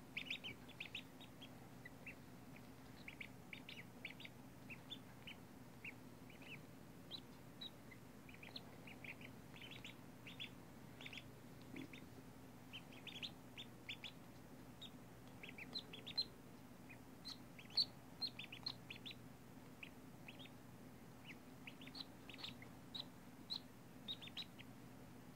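Day-old Magpie and Cayuga/Rouen cross ducklings peeping: many short, high peeps at an irregular pace throughout, with a faint steady hum underneath.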